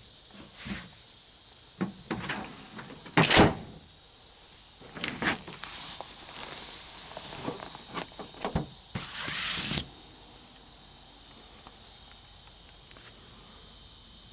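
A string of clunks and knocks from the pickup's bed hardware being handled and shut, the loudest a single heavy slam a little over three seconds in, with a short scraping rush near ten seconds; then only faint steady background.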